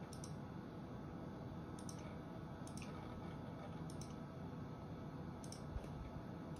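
Several separate computer mouse clicks, spread irregularly, over a faint steady hum.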